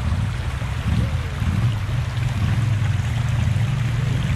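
A side-by-side UTV's engine runs with a low, uneven drone as the machine crawls over rocks in a shallow river, over the steady rush of small rapids.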